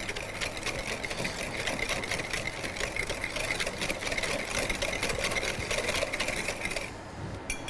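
Electric mixer running steadily, beating eggs and sugar with melted butter in a bowl; the motor stops about seven seconds in.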